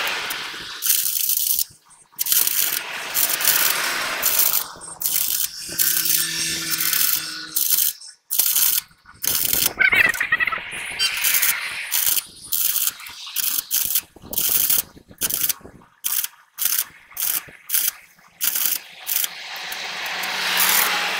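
Stop-start metalwork on a truck axle casing being repaired for holes: bursts of crackling and scraping, broken by many abrupt short gaps. A faint steady hum comes in about six seconds in and again near the end.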